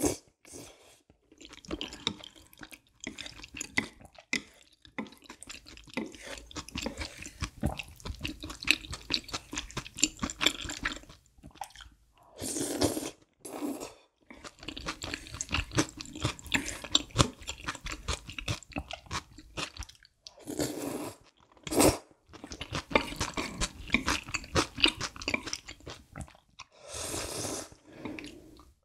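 Close-miked eating of creamy spicy udon noodles: wet chewing with fast mouth clicks, broken by about three loud slurps of noodles.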